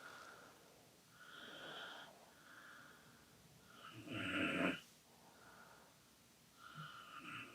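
Hands sliding and rubbing over skin in a back massage, soft swishing strokes in waves about a second apart, the strongest about four seconds in.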